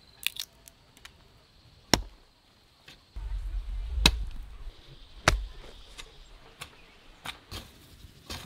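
A few quick snaps of peanut shells being cracked open by hand, then a garden hoe chopping into dry soil in sharp strikes about one to two seconds apart, with smaller knocks near the end.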